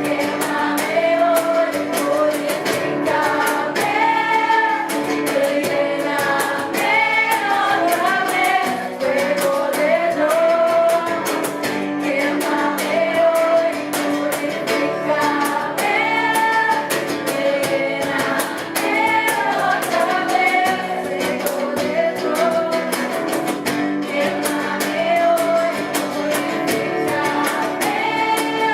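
Worship music: a group singing a song with guitar accompaniment.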